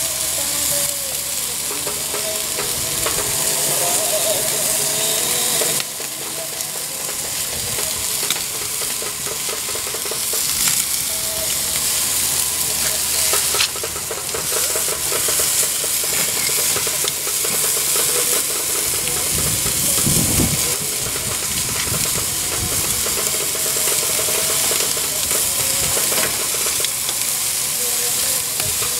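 Flanken-cut beef short ribs in Korean barbecue sauce sizzling steadily on a gas grill's grates.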